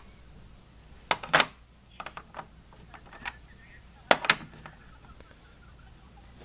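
Metal wrenches and sockets clinking and clacking as they are handled and fitted into a tool set case: a run of sharp clicks, loudest about a second in and again about four seconds in.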